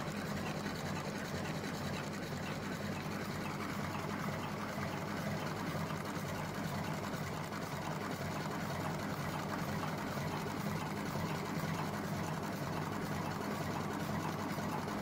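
Electric cam-driven automatic cigarette filling machine running steadily, its single motor driving all the mechanism at once, with a fast, even mechanical rhythm.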